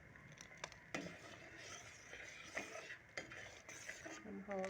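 A spoon stirring thick, simmering tamarind chutney in a cooking pot, with a few light, irregular scrapes and clinks against the pot.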